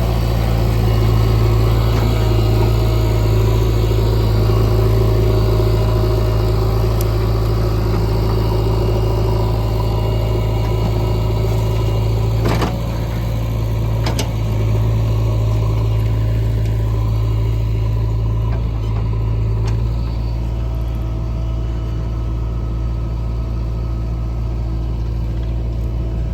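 Heavy diesel engine running steadily at a low, even hum, with a couple of sharp knocks about halfway through.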